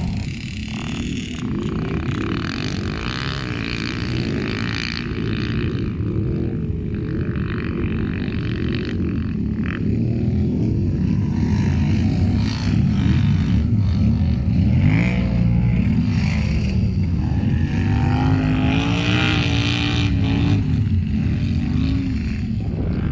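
ATV engines running hard and revving, the engine note rising and falling over and over as the throttle is worked, with one long climb and hold near the end.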